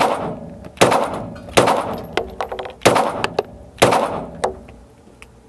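Glock G25 .380 ACP pistol firing five shots at a steady pace of about one a second, each with a short reverberating tail in an indoor range. Fainter sharp clicks fall between the later shots.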